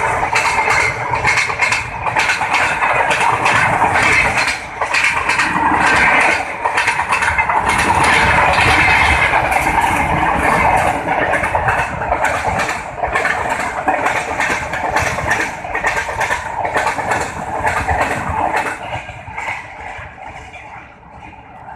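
Diesel-hauled Indian Railways passenger train running past, its wheels clattering over the rail joints in a rapid, uneven run of clicks over a steady rumble. The sound dies away over the last few seconds as the train moves off.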